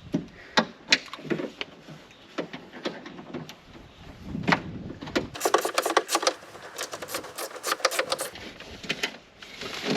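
A wrench undoing the 10 mm nuts behind a Toyota Land Cruiser 100 Series door handle inside the door: scattered metallic clicks and knocks, then a quick run of rapid clicks lasting nearly three seconds about halfway through.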